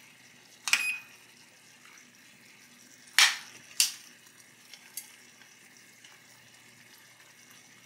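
Faint steady sizzle of curry simmering in a pan, broken by four sharp clinks of a fork and plastic measuring cup against the pan, the loudest about three seconds in.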